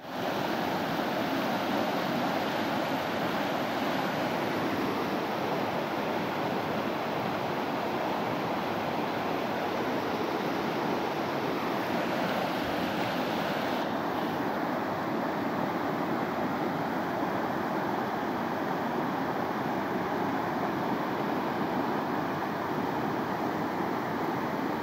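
A creek in flood after heavy rain: muddy floodwater rushing steadily over rocks and across a dirt track.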